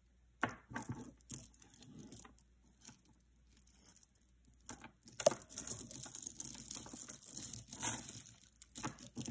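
Strands of faux pearl and beaded necklaces rattling and clicking against each other as they are picked up and shuffled by hand on a tablecloth. A short spell of clatter about half a second in, a lull, then a longer, busier spell in the second half.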